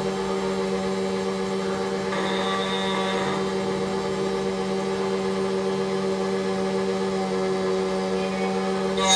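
SEC E9 automatic key cutting machine running as it mills a Toyota TOY43 key blank: a steady motor hum at an even level.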